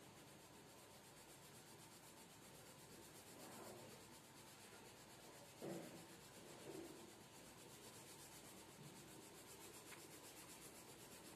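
Faint scratchy rubbing of a colored pencil shading on drawing paper, with a couple of slightly louder soft strokes a little past halfway.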